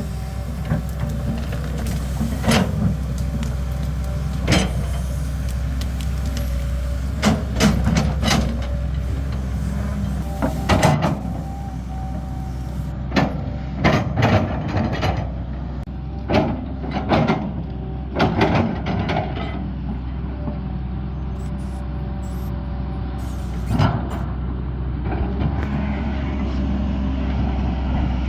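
Caterpillar 320D excavator's diesel engine running steadily under work, with a series of sharp metallic clanks and knocks from the machine as it digs, thickest through the middle.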